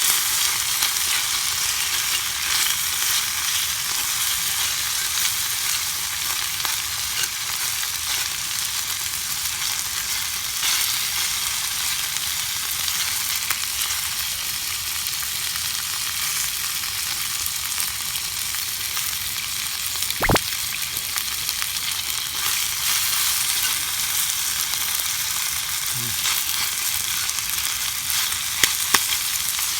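Fatty pork intestine horumon frying in a small cast-iron skillet: a steady sizzle with spattering fat. One sharp pop about two-thirds of the way through, and a couple of small ticks near the end.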